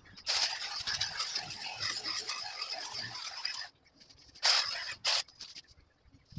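Crackling rustle of branches and bramble stems being pushed through for about three seconds, then two short, louder rustles close by.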